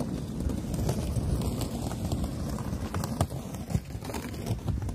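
Footsteps of a person walking on a railway platform, with scattered short knocks over a steady low rumble.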